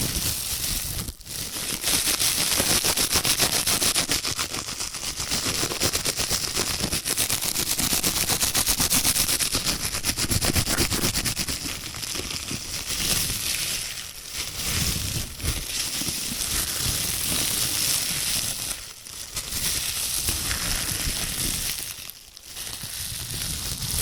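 Disposable plastic gloves being rubbed, crinkled and scrunched close to the microphone, a fast continuous crackling with a few brief pauses.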